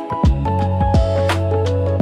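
Background music: a melody over a bass line and a steady drum beat.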